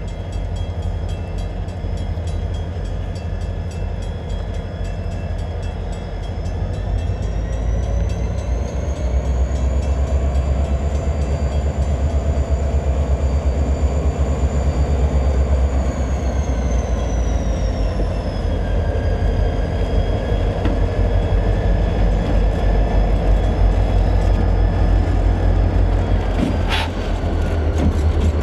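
Diesel-electric freight locomotives passing close by at low speed, a steady deep engine rumble throughout. A high whine climbs about eight seconds in, holds, and falls away after about sixteen seconds. A single short, sharp metallic sound comes near the end.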